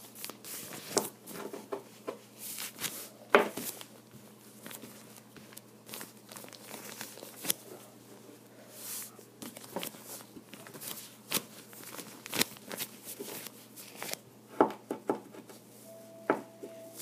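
Hands pressing, patting and breaking up kinetic sand on a cloth-covered table, with a metal spoon scraping and cutting into it: soft crumbly rustling broken by irregular sharp taps and scrapes, the loudest a few seconds in.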